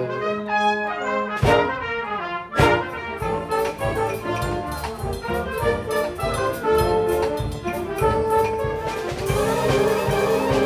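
Brass ensemble playing live in the open air: trumpets and trombones in a jazzy piece, with two sharp percussive hits in the first few seconds.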